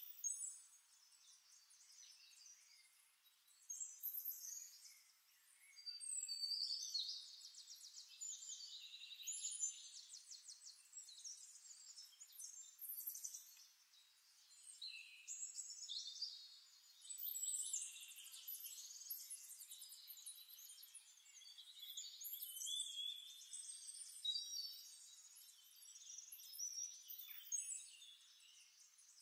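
Faint chorus of many songbirds chirping and trilling without pause, all high-pitched.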